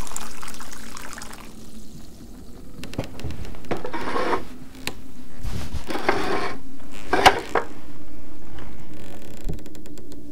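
Liquid poured in a stream into a ceramic bowl, a steady pour ending about a second in, followed by a few shorter bursts of liquid noise.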